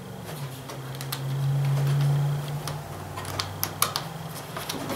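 Light, irregular clicks and taps of hand tools and metal parts as the negative cable is fastened to the mower's battery terminal, over a steady low hum.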